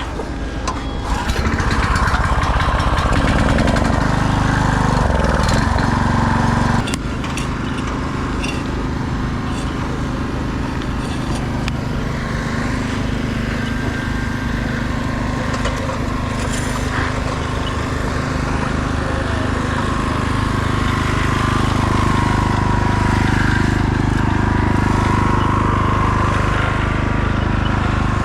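Engine running steadily, held at higher revs from about a second in, then dropping back suddenly about seven seconds in and running on steady.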